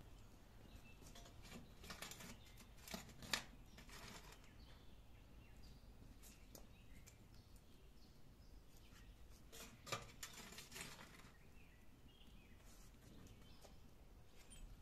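Faint scrapes and clinks of a flat metal scoop shovelling embers and ash and tipping them into a brick grill pit. They come in two short clusters, about two to four seconds in and again around ten seconds in.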